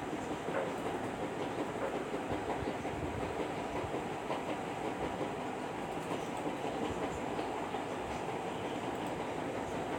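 Steady background noise: an even, continuous rush with a few faint scattered ticks.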